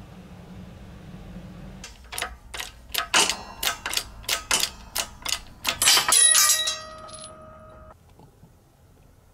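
A hammer strikes a steel drift about a dozen times, roughly three blows a second, knocking the ball-bearing cup out of a Velosolex's aluminium rear wheel hub. The last blows are the loudest and leave a metallic ringing that dies away over about a second and a half.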